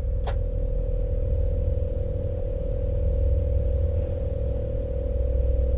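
A steady electronic hum, one unchanging tone, over a low rumble, with a single short click about a third of a second in.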